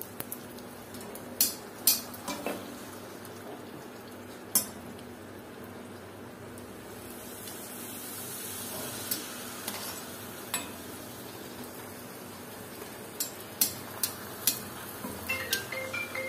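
Gol gappa puris deep-frying in hot oil in an iron wok, a steady sizzle, with sharp clicks of a metal slotted spatula against the wok as the puris are turned and lifted. The clicks come a few at a time early, and in a quick run near the end.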